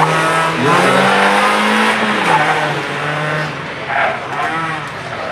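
Honda Civic hatchback's engine revving hard, its pitch climbing and then dropping about two seconds in. The tyres squeal through tight turns near the start and again about four seconds in.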